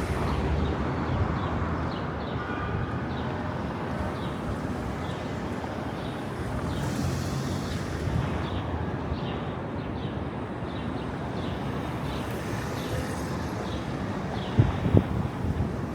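Steady outdoor street noise of passing traffic, with a few sharp knocks near the end.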